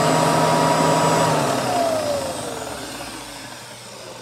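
1953 Kirby 513 upright vacuum cleaner's motor running with a steady whine, then switched off about a second and a half in and winding down, the whine falling in pitch and fading as it coasts to a stop.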